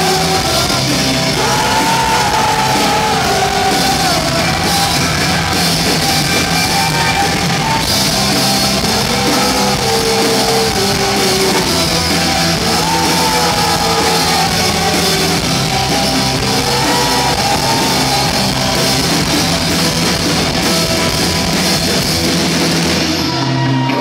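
Live rock band playing with a woman singing lead, loud and full. Shortly before the end the band cuts out, leaving one held low note.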